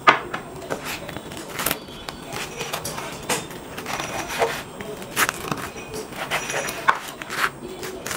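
Knife slicing through a crisp fried Mughlai egg paratha on a wooden chopping board: irregular crunches and sharp knocks of the blade against the board, about two a second, the loudest right at the start.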